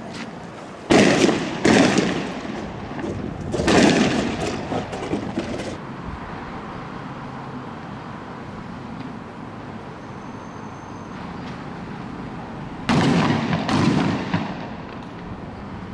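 Loud explosive bangs in two clusters: two sharp bangs about a second apart near the start and a third a couple of seconds later, then another pair near the end. Each bang has about a second of crackling, echoing tail, and a steady background hiss fills the gaps between.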